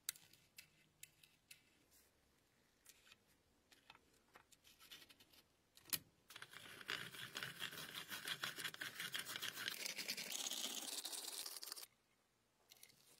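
Hand-crank pencil sharpener: light clicks as the pencil holder is handled, a sharp click about six seconds in as the pencil goes in, then about five seconds of fast, rasping grinding as the cutter shaves the pencil. The grinding stops abruptly.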